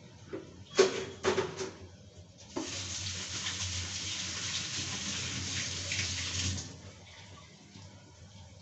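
A few sharp clinks of kitchen utensils, then water running from a kitchen tap for about four seconds, starting and stopping abruptly.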